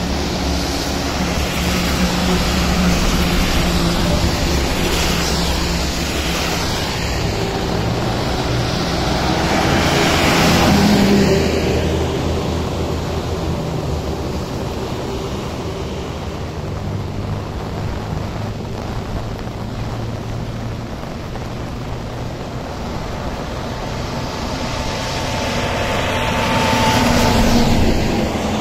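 Traffic on a rain-soaked highway in heavy rain: a steady hiss of rain and tyre spray with the low drone of lorry and car engines, swelling as vehicles pass about ten seconds in and again near the end as a lorry approaches.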